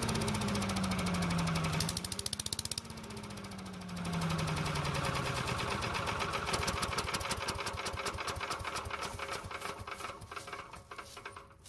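Predator 301cc single-cylinder engine running a Little Wonder walk-behind leaf blower. It is throttled up twice, and its pitch sinks after each rise. Over the last few seconds it slows and dies away as it is shut down.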